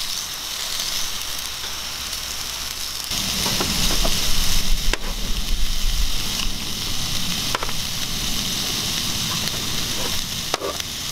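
Slices of beef tongue sizzling on a small grill plate. The sizzle grows louder about three seconds in as more slices are laid on, and a few sharp clicks sound over it.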